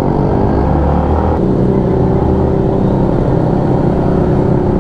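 Yamaha Sniper 150 motorcycle's single-cylinder four-stroke engine running steadily under way, heard from the rider's camera.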